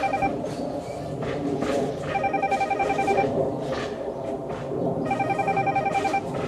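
A telephone ringing with a trilling electronic ring: two rings about three seconds apart, each lasting about a second, with the end of an earlier ring at the very start. A few faint clicks sound underneath.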